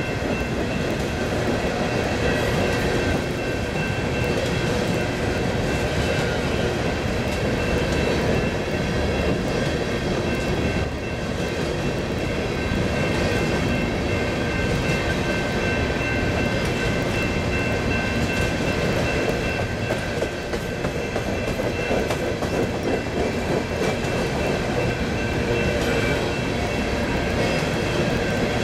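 A BNSF freight train's cars rolling steadily past, wheels clacking over the rail joints under a constant rumble, with a few steady high-pitched tones over it.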